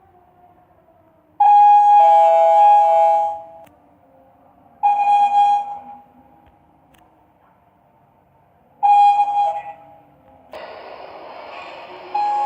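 Sigma elevator arrival chimes: a falling two-note ding-dong about a second and a half in, a single ding about five seconds in, and another two-note chime about nine seconds in. A steady noise comes in about ten and a half seconds in, and a further chime starts near the end.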